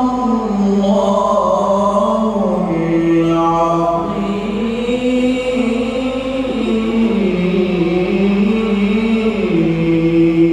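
A man reciting the Quran in the melodic tilawah style into a handheld microphone, drawing out long ornamented notes that waver and step up and down in pitch, settling into a long held low note near the end.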